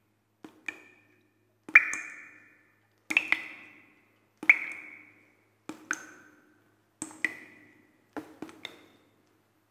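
Sparse percussive music: single struck, wood-block-like notes, about one every 1.2 seconds, each ringing briefly and some with a quick grace note before them.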